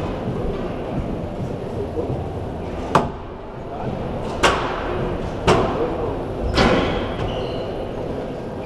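Squash rally: four sharp cracks of the ball struck by rackets and off the court walls, about a second apart, each with a short ringing tail, over a steady background hubbub.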